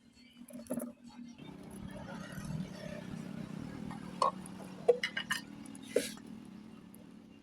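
A few sharp metallic clinks and taps from tools and parts being handled, over a steady low hum.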